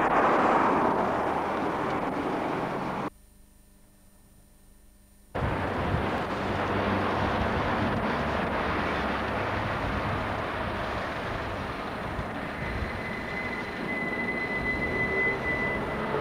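Noise of an old VHS tape starting to play: hiss over the static, a roughly two-second dropout to near silence about three seconds in, then the camcorder's steady rumbling background noise, with a faint high steady tone for a few seconds near the end.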